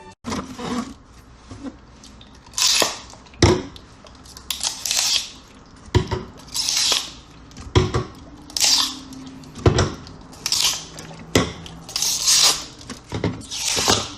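Teeth biting repeatedly into an apple-shaped Martinelli's apple juice bottle, about a dozen short crisp crunches roughly a second apart, with sharp clicks between some of them; the crunch sounds like biting into a real apple.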